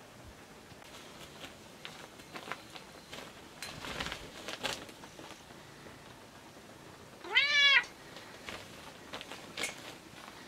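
A domestic cat meows once, a short call that rises and then falls in pitch, about seven seconds in. Faint scattered taps and rustles come before it.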